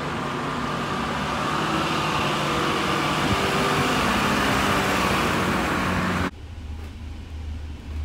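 Street traffic noise as a red Routemaster double-decker bus's engine approaches and passes close by, loudest around the middle. About six seconds in it cuts off suddenly to a quieter low, pulsing engine rumble heard from the upper deck of a double-decker bus.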